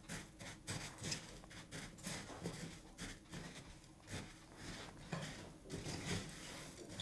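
Wooden spatula stirring sugar-syrup-coated puffed rice in a glass bowl: faint, irregular rustling and scraping strokes. Near the end the puffed rice is tipped into a second glass bowl.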